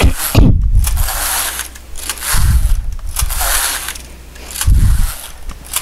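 A Passap electronic double-bed knitting machine's carriage being pushed across the needle beds to knit rows. There are three passes, each a rushing, clattering sweep of about a second and a half, with a low thump as the carriage changes direction at the end of the bed.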